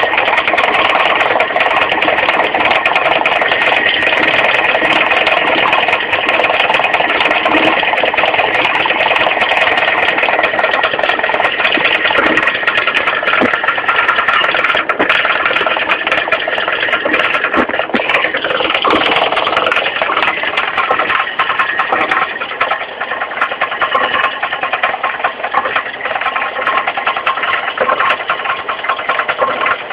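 Mitsubishi 4G15 carburetted four-cylinder engine running steadily, with a rapid ticking clatter from the crankshaft pulley area down low. The cause is a loose crankshaft pulley.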